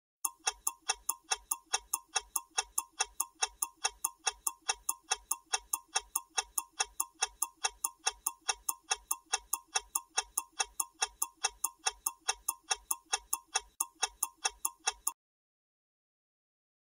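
Clock-ticking sound effect of a quiz countdown timer: even, sharp ticks at a little over three a second, marking the time left to answer, that stop abruptly about fifteen seconds in when the timer reaches zero.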